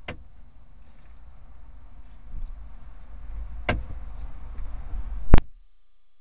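Low steady rumble inside a stationary car's cabin, broken by a few sharp clicks. A loud knock comes about five seconds in, and right after it the rumble stops abruptly.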